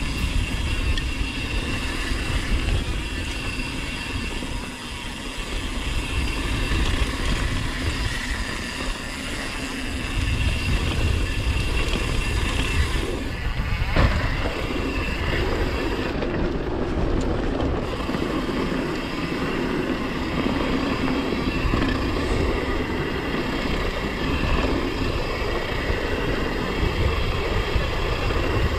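YT Tues downhill mountain bike ridden fast down a dirt jump trail: a steady rush of wind over the camera microphone mixed with tyre roar on packed dirt and the rattle of the bike. A single sharp knock comes about fourteen seconds in.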